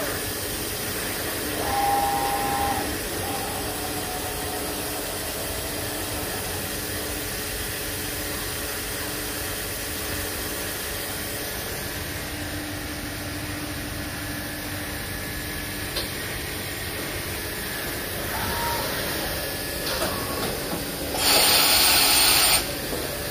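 Five-axis vertical machining centre running with a steady mechanical hum and a tone that comes and goes, then a loud hiss lasting about a second near the end.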